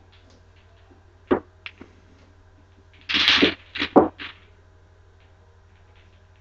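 Mini tabletop pool table: a sharp click of the cue striking a ball, followed by two lighter ball clicks. About two seconds later the balls clatter together for half a second, then a few more clicks as they are gathered by hand on the felt.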